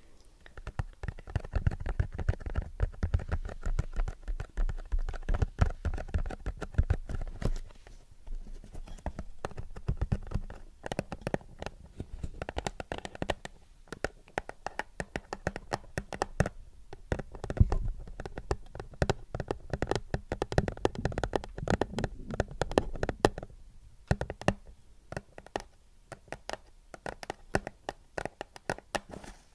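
Fingernails tapping and scratching rapidly on a thin printed cardboard box held close to the microphone, with dull bumps from handling, in several busy stretches separated by short quieter pauses.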